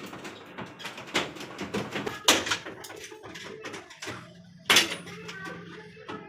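A run of knocks and clatter, like hard parts being handled and struck, with sharp bangs about two and a quarter and about four and three-quarter seconds in.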